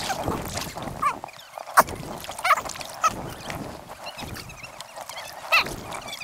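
Sped-up 4X time-lapse audio of kayak paddling: water noise from paddles and hulls, with voices shifted up into short, squeaky, honk-like chatter.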